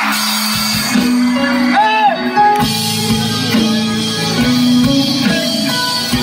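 Live band playing amplified through a PA: strummed guitars, bass and a drum kit keeping a steady beat, coming in at once as crowd cheering gives way.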